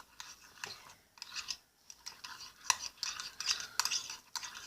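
A spoon stirring thick shampoo in a small bowl, with irregular scraping and clicking against the bowl and a short pause just under two seconds in.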